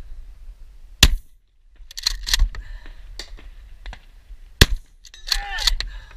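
Remington 870 pump-action shotgun firing two shots, about three and a half seconds apart, with a short echo after each. Each shot is followed about a second later by a burst of metallic clattering.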